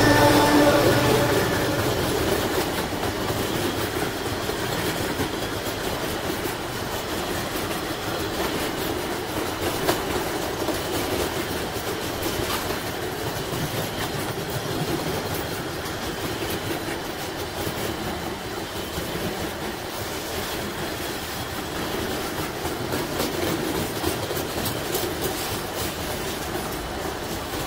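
A diesel locomotive passes close by at the start with its engine running, then a long train of flatcars rolls past: steady wheel-on-rail noise with scattered clicks of wheels over rail joints, slowly easing off.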